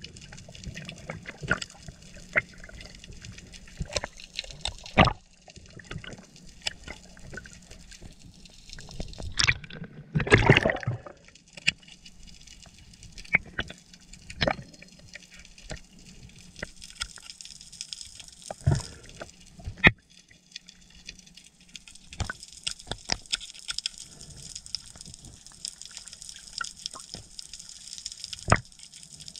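Underwater sound through a camera housing: water noise with scattered sharp clicks and crackles, and a loud gurgling rush of water about ten seconds in. A steady high hiss joins from about halfway.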